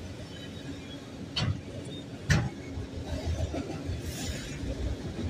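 Freight train of autorack cars rolling past: a steady rumble of steel wheels on the rails, with two sharp knocks about a second and a half and two seconds in.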